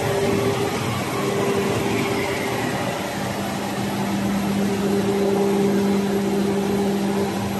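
Paper-and-foil coextrusion lamination machine running, a steady mechanical hum with a constant low tone over even machine noise.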